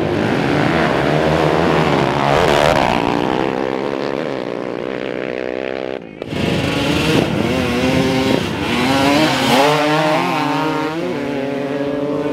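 Sport quad engines revving hard as two ATVs launch down a dirt drag strip, their pitch climbing and dropping in steps with the gear changes. After a brief break about six seconds in, more engines revving as quads and dirt bikes race away.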